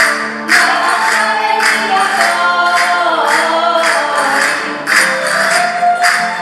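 Live Valencian folk dance music from a rondalla string band of guitars and lutes, with a voice singing the melody and a sharp rattling percussion accent about once a second.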